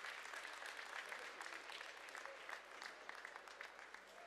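Audience applause: many hands clapping, slowly dying down.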